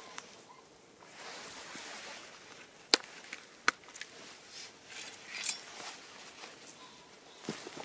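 Two sharp clicks about three-quarters of a second apart, with rustling of clothing, as an old Billnäs billhook is unfastened and drawn from its belt sheath.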